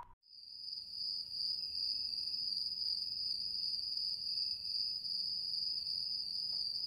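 Crickets chirping in a steady, high-pitched trill, as night-time ambience.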